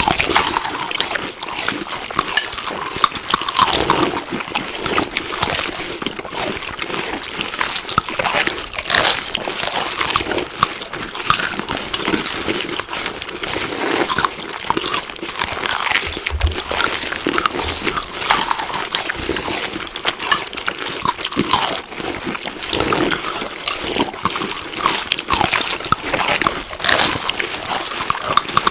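Close-up chewing of food: continuous wet smacking and crunching with many small irregular clicks.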